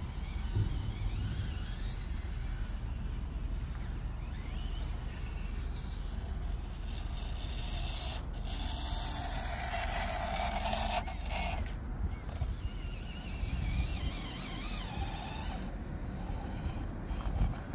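Small electric motor and gears of a 1:18 scale RC rock crawler whirring as it crawls over rough ground, over a steady low rumble. It is louder for a few seconds in the middle.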